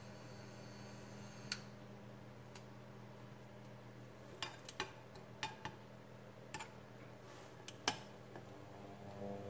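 A metal spoon clicking and scraping against a nonstick frying pan as it pushes and spreads frying egg into a round. The clicks are short and scattered, mostly from the middle on, over a faint steady low hum.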